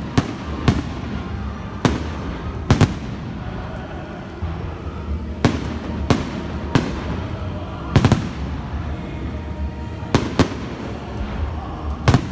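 Aerial firework shells bursting close overhead: about a dozen sharp bangs at irregular intervals, some in quick pairs, the loudest about eight seconds in.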